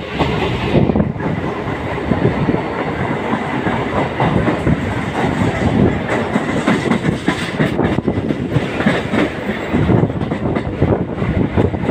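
A train running along the rails: a steady loud rumble with wheels clattering irregularly over the track.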